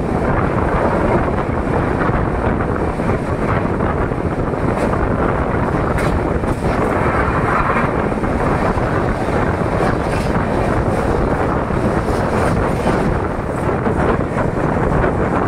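Express passenger train running along the track: a steady, loud running rumble, with wind buffeting the microphone.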